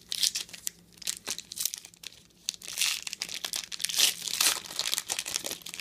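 Foil wrapper of a trading-card pack crinkling and crackling as it is torn open and pulled apart by hand, in a run of irregular rustles that is densest in the second half.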